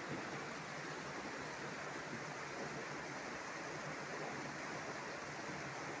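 Shallow rocky stream flowing over small rapids, a steady sound of running water.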